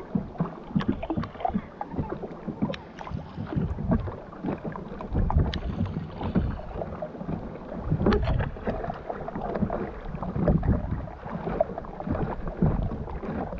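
Kayak paddle strokes splashing and water lapping against a plastic sit-on-top kayak hull, close to a deck-mounted camera, with wind buffeting the microphone. The splashes come unevenly.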